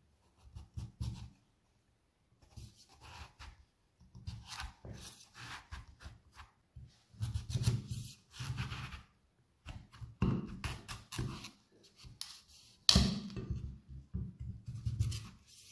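A large cleaver cuts through raw pumpkin on a wooden chopping board, making repeated crunching and knocks of the blade. The loudest, sharpest knock comes about 13 seconds in.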